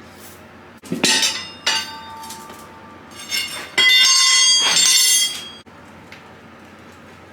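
Metal clanks and ringing from tire irons striking and scraping against a motorcycle wheel rim while the tire is levered off. There are several sharp clanks about a second in, then a louder, drawn-out ringing scrape from about four to five and a half seconds.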